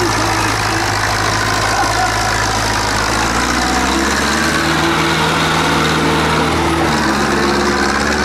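Tractor engine running steadily at low revs, its note shifting about four seconds in.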